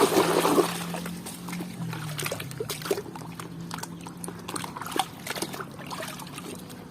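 Plastic toy being washed: water trickling for the first second, then scattered clicks and drips as the toy is handled, over a low steady hum.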